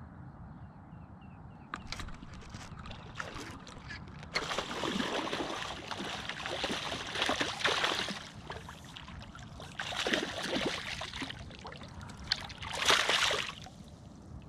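Water splashing and sloshing in three bursts, the last short and loudest, after a few light knocks.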